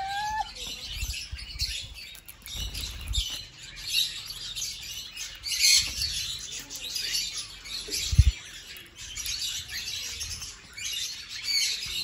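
Lovebirds chirping in short, high-pitched bursts while perched on a hand, eating seed. A single sharp thump about eight seconds in.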